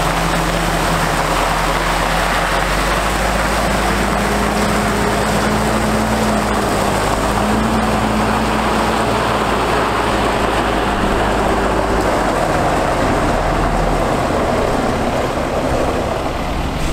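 Caterpillar C7 diesel engine of a Freightliner M2 water truck running steadily as the truck moves, with a continuous hiss of water spraying from its rear spray bar, fed by a PTO-driven pump.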